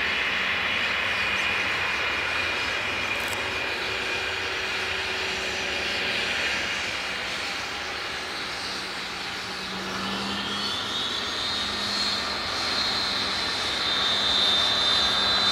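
Embraer Legacy 650 business jet's two rear-mounted Rolls-Royce AE 3007 turbofans running with a steady whine at taxi power. About ten seconds in the whine rises in pitch and holds high, and the engines grow louder near the end as they spool up for the takeoff run.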